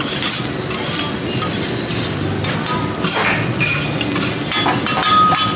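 Forks and chopsticks clinking against plates and bowls: many short, sharp clinks scattered throughout, over a steady background din, with a brief ringing tone near the end.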